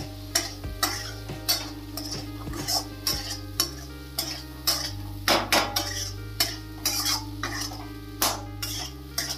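A spoon stirring spiced black chickpeas in a pan, with irregular scrapes and clinks against the pan about once or twice a second.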